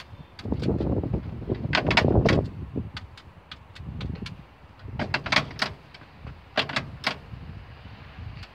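Metal keypad buttons of a public payphone being pressed: sharp clicks in clusters about two, five and seven seconds in, over an uneven low rumble of wind on the microphone.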